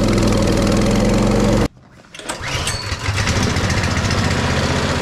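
Mini bike's small engine running steadily at speed, then cut off abruptly; after a brief quieter moment, a Coleman mini bike's small engine comes in running with a lower, lumpy pulsing beat that builds up in loudness.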